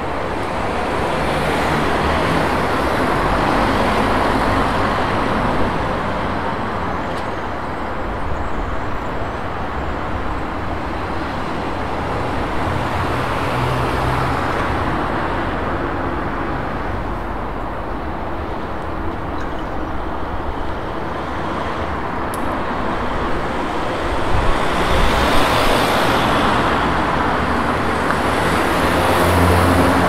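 City street traffic: a steady wash of car and bus engines and tyres, swelling as vehicles pass every several seconds, loudest about three quarters of the way through.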